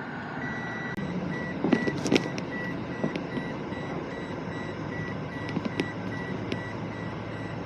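A vehicle's warning beeper sounding a steady run of short, same-pitched beeps, about two and a half a second, over a running engine. A few sharp knocks come about two seconds in.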